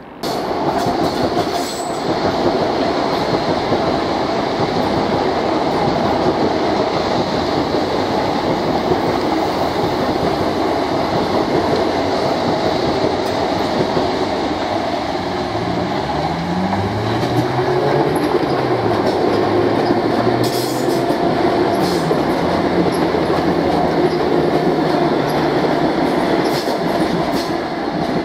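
Electric multiple-unit passenger train running past on the line: steady wheel-on-rail noise, with a low electric motor whine that glides up and down in pitch midway and a few sharp clicks of wheels over rail joints later on.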